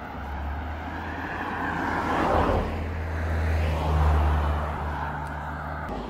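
Cars driving past close by on a sealed road, one after another, their engine and tyre noise swelling and fading, with the loudest passes about two and four seconds in.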